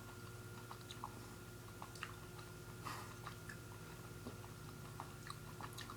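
A person chewing a gummy fruit snack: faint, scattered soft clicks and smacks of the mouth. A faint steady hum lies under it.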